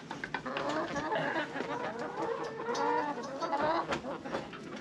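A flock of hens clucking throughout in a chicken coop, many short overlapping calls, with a few light knocks.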